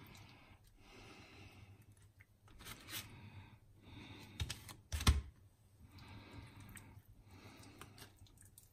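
Quiet food-prep handling noises: light scraping and rustling, with two short knocks a little after four and five seconds in, the second the loudest.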